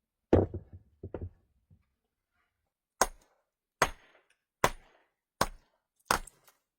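A series of knocks: two heavier thuds in the first second or so, then five sharp blows at an even pace, a little under one a second.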